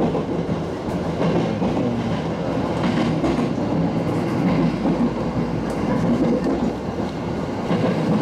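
Running noise inside a moving passenger train: a steady rumble of wheels on the rails, with a few faint clicks.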